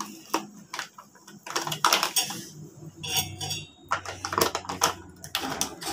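Dishes and utensils clinking and clattering as they are washed by hand at a kitchen sink: a string of irregular knocks and clinks.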